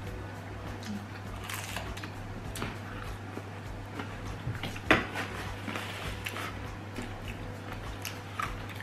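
Eating sounds at a table: scattered small clicks and crunches of thin-crust pizza being bitten and chewed, with one sharper knock of dishes about five seconds in, over a steady low hum.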